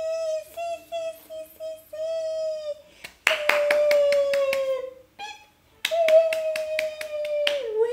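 Rapid hand clapping, about five claps a second, in two runs, over a voice holding long high notes that slowly fall in pitch. Before the clapping starts the voice makes shorter held notes.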